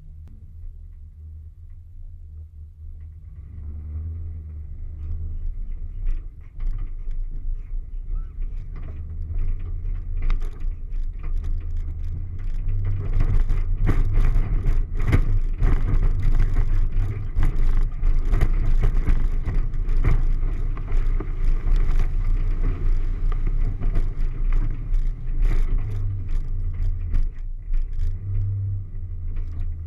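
Off-road vehicle driving over rough, rutted dirt: a steady low engine rumble that grows louder about ten seconds in, with many short knocks and rattles from the bumpy ride.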